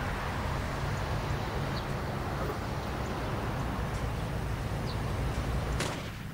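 Steady outdoor street noise with a low vehicle hum underneath, from the soundtrack of a TV drama scene set on a street with parked cars. A short click comes near the end.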